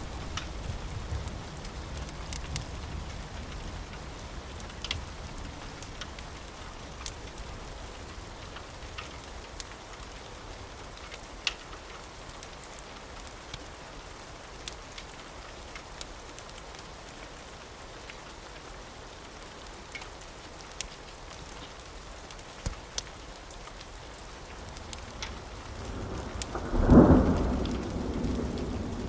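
Steady rain with scattered sharp ticks. A low thunder rumble dies away at the start, and near the end a thunderclap builds from a rumble to a loud peak, then rolls on.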